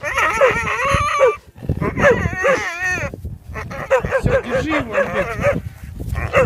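A foal whinnying, three long, quavering high calls and a short one at the end, as it is pushed free of a tree fork it is stuck in.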